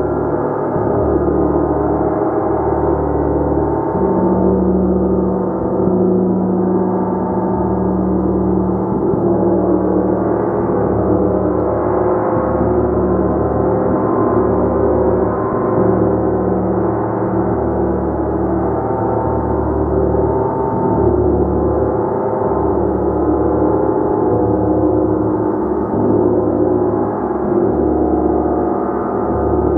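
A gong played continuously with soft repeated strokes, building a dense, steady wash of many overlapping ringing tones that pulse and swell.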